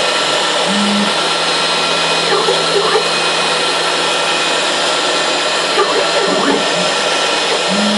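CNC router spindle running steadily at high speed, cutting into the block with a loud, even whine. Short tonal notes from the axis drives come through about a second in and near the end as the carriage moves and changes direction.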